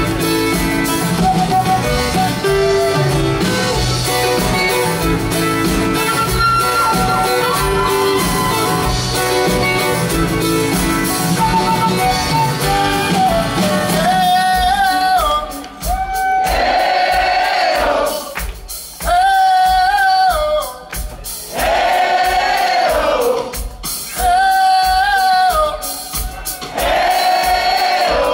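Live band playing an instrumental break after the chorus of a pop-rock song. About halfway through, the bass and drums drop back, and a group of voices sings a short wordless phrase in chorus over and over, about every two and a half seconds.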